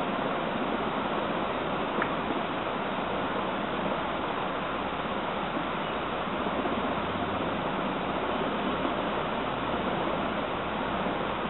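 Steady hiss of background noise with no speech, and a faint click about two seconds in.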